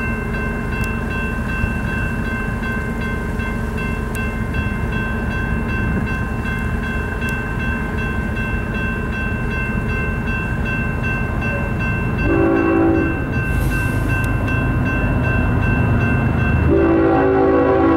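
Union Pacific diesel freight locomotive approaching at speed, its engine running with a steady high whine over the rumble. Its multi-chime air horn sounds a short blast about twelve seconds in and a long blast starting near the end.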